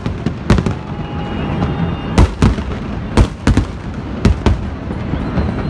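Aerial fireworks display: a string of sharp bangs from shells bursting overhead, several coming in quick pairs, over a continuous low rumble of further explosions.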